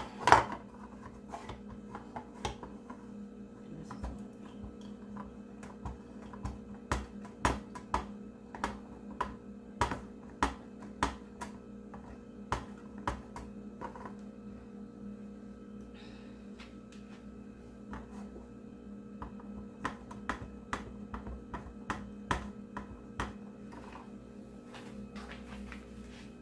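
Monterey Jack cheese being grated by hand on a flat grater laid across a ceramic bowl: a string of irregular sharp clicks and taps, one or two a second, thinning out near the end.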